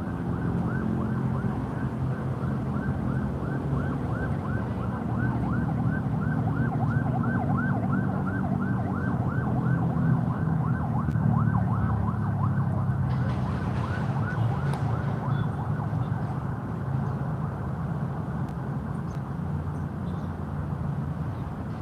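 Emergency vehicle siren in rapid yelp mode, about three wails a second, fading out about thirteen seconds in, over a steady low rumble.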